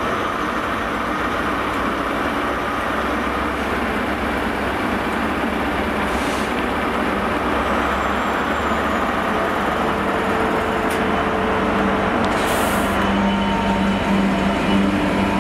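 DB Cargo Class 66 diesel locomotive, its two-stroke V12 engine running, hauling a freight train past. The noise grows gradually louder as it draws alongside. A steady engine note stands out from about ten seconds in.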